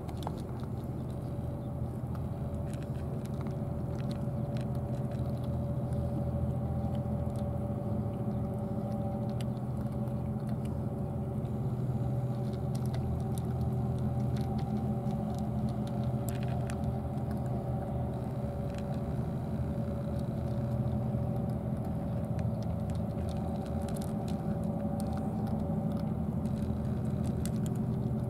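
Steady low mechanical hum holding several constant pitches, with faint scattered clicks of cats crunching dry kibble from plastic dishes.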